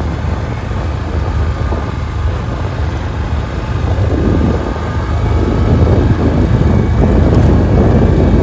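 Can-Am Outlander 650 ATV's V-twin engine running under way, with wind rumbling on the microphone; it gets a little louder about six seconds in.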